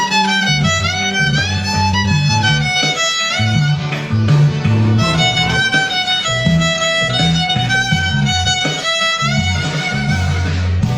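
Violin playing an improvised melody with slides between notes, over a bass line.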